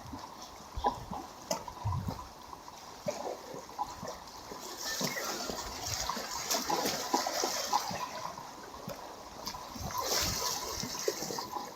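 Sea waves washing and splashing against the shore, swelling twice, about five seconds in and again about ten seconds in, with small knocks scattered between.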